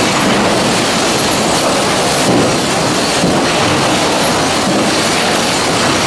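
Sawmill trim-and-sort line running: a lug transfer chain conveyor carrying pine boards, with a steady, loud mechanical clatter of chains, lugs and lumber.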